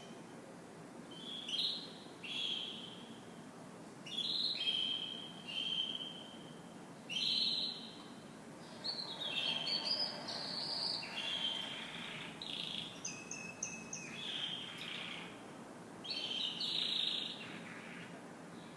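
Canary singing in short bursts of trills and whistles with pauses between, then a longer, nearly unbroken run of song in the middle.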